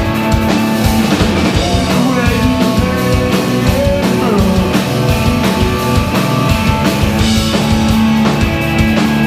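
Punk rock band playing live: electric guitars and a drum kit at full, steady loudness, with constant drum hits under held guitar chords.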